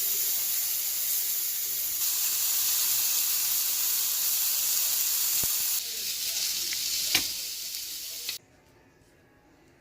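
Fried rice with Napa cabbage and frozen vegetables sizzling in a hot frying pan as it is stir-fried, with a couple of sharp utensil clicks against the pan. The sizzle stops abruptly about eight seconds in.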